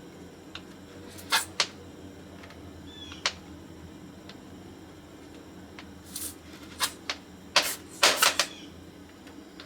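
Scattered sharp clicks and taps of small hand tools handled during soldering work, a quick cluster of them near the end, over a low steady hum.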